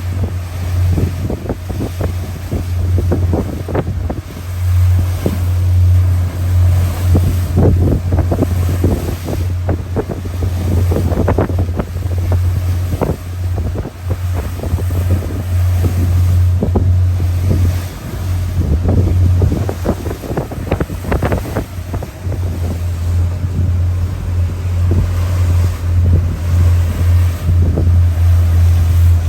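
Ocean Alexander 48 trawler's diesel engines droning steadily under way, with wind buffeting the microphone and water rushing and splashing along the hull in irregular gusts.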